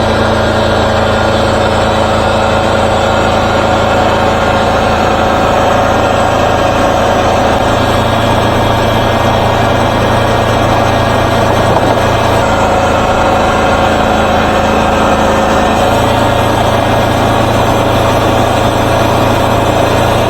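Wood-Mizer LT40 Super Hydraulic sawmill's engine running steadily at a constant speed. The low hum shifts slightly about two-thirds of the way through.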